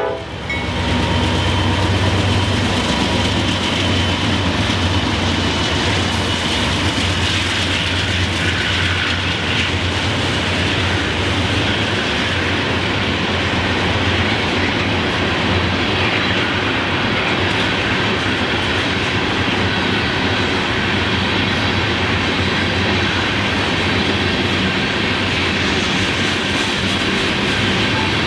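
Freight train's cars, a string of covered hoppers, rolling past close by with a steady rumble that is heaviest in the first dozen seconds.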